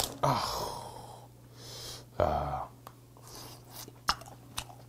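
Cooked red snow crab legs being snapped off by hand and the meat sucked out of the shell, with breathy mouth sounds from the eater. Two short noisy bursts come just after the start and about two seconds in, with a few faint clicks near the end.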